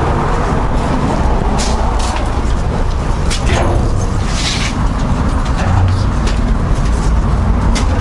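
Steady low rumbling noise throughout, with a few short clicks and knocks as a metal door is opened.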